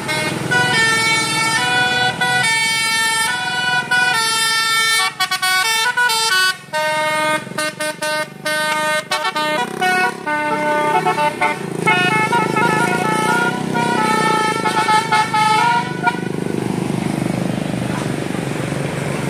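Bus telolet horn, a Basuri multi-tone musical air horn, playing a fast melody of changing notes for about sixteen seconds, then cutting off and leaving a steady noisy rumble.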